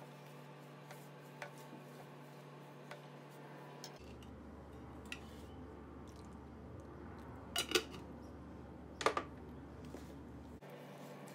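Hands mixing flour and liquid in a metal baking pan: soft scraping and light ticks against the pan. A little past halfway there are two sharp clinks close together, then a third about a second and a half later, typical of a glass jar knocking the pan's rim.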